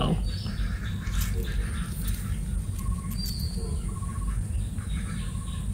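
Outdoor ambience: a few short, high bird chirps over a steady low background rumble, with a faint, steady insect buzz.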